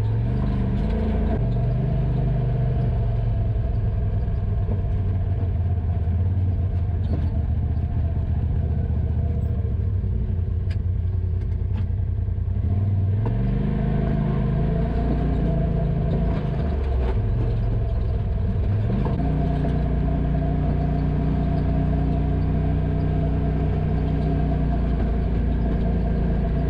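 Side-by-side UTV engine running while driving a trail, heard from on board. The engine note holds steady, then shifts in pitch a few times as the throttle changes, with a few light knocks from the machine.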